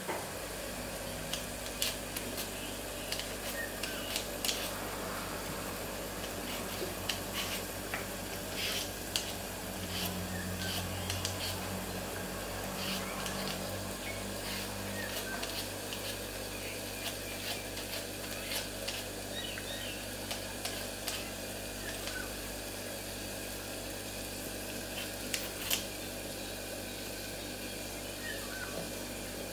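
Y-shaped vegetable peeler scraping the skin off a potato in short, irregular strokes, with small clicks, over a steady low hum.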